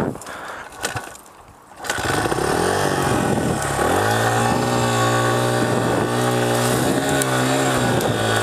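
Honda CRF100F dirt bike's small four-stroke single-cylinder engine, quiet at first, then coming in sharply about two seconds in. It revs with the pitch dipping and climbing, then holds a steady, loud high-revving note under load as the bike pushes up a steep grassy hill climb.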